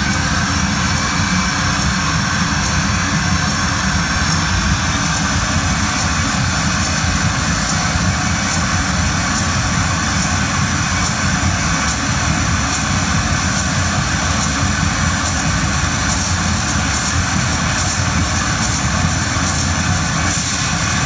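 Harsh noise made from a contact-amplified input of glass rattling inside a boiling pan, run through electronics: a dense, steady wall of noise with a heavy low rumble. Fast crackling clicks come in about halfway and grow thicker toward the end.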